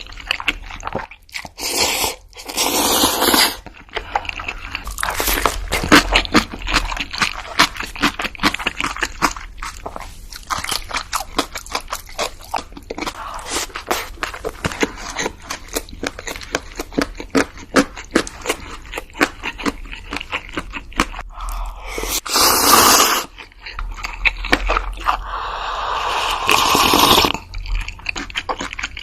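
Close-miked eating: a dense run of crunchy bites and chewing, with a few longer noisy stretches in between.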